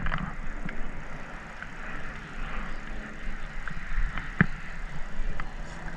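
Fishing reel being cranked to bring in a fish, with a few light, irregular clicks over a steady low hiss.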